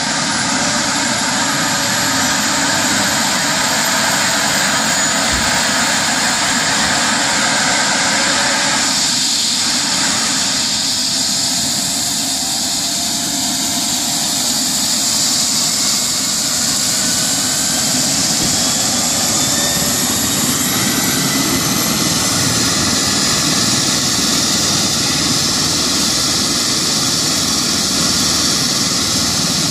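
Eurocopter EC135 air ambulance helicopter running on the ground with its rotor turning: a loud, steady turbine whine over rotor noise. A few of its tones shift slightly partway through.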